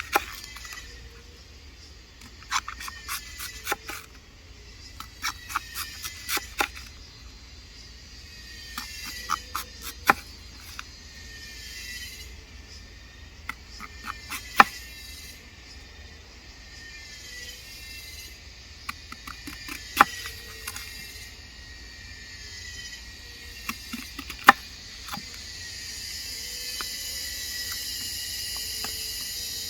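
Sharp clicks and knocks, several in quick clusters, over a steady outdoor background of insects and birds that grows a little louder near the end.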